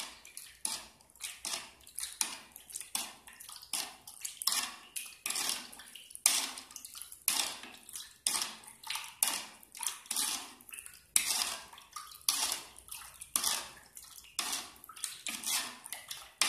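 A plastic spoon stirring salt water in a plastic bowl, scraping and swishing in quick repeated strokes at about two a second. This is common salt being dissolved in water.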